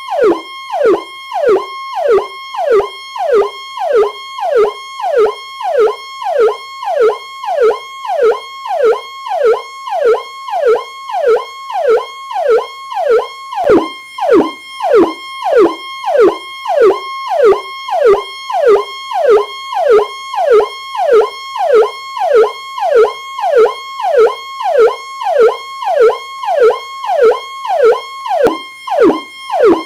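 Police siren on its Powercall tone: a high tone that drops sharply in pitch, repeating about one and a half times a second.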